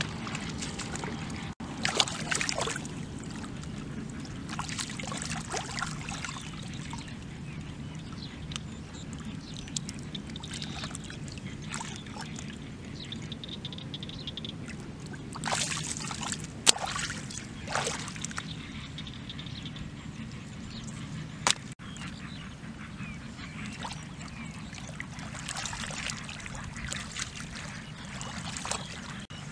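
Hands sloshing and splashing in shallow muddy water, in short irregular bursts with an occasional sharp slap, over a steady low hum.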